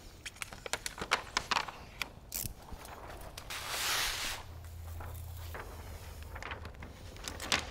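Sheet of plastic window tint film crackling and rustling as it is handled and pulled against car door glass, with a louder swish of the film about four seconds in, over a low steady hum.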